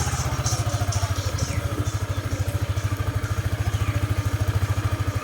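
Motorcycle engine running steadily on the road, with an even, rapid low pulsing, carrying three riders.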